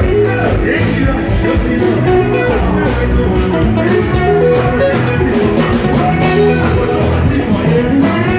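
Live Afropop band playing loudly over the stage PA, with electric guitar prominent over bass and drums and some singing.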